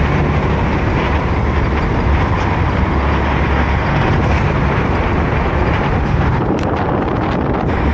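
Steady wind and road noise of a car driving at speed, a low rumble of engine and tyres under a hiss of rushing air, with a few faint clicks near the end.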